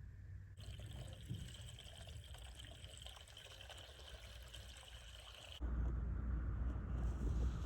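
Water trickling steadily from a leaking bidet faucet around its rusted handle stem. It stops abruptly about five and a half seconds in, and a louder low rumble takes over.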